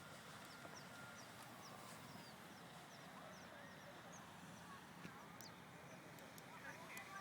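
Faint outdoor ambience: small birds chirping over and over in short high notes, with a few lower gliding calls, over a steady low background hiss.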